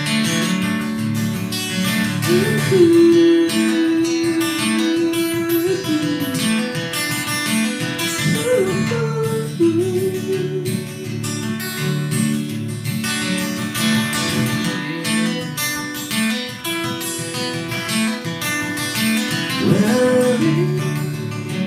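Instrumental break in a live acoustic country song: steady acoustic guitar accompaniment under a melodic lead of long held notes, several of which slide up into pitch.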